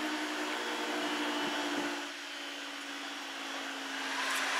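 Level crossing barrier mechanism whirring steadily as the barriers lift to reopen the road, with a slight dip in level about two seconds in.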